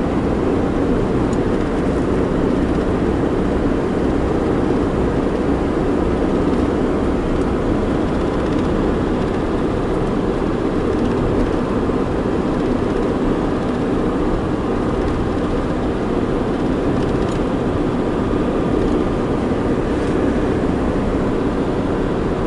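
Toyota minivan driving along a road, heard from inside the cabin: steady engine and road noise with no change in level.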